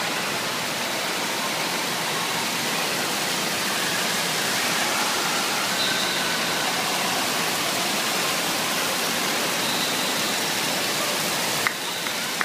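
Indoor waterpark ambience: a steady rush of falling and splashing water from the water slides and water-play structure, with a click near the end.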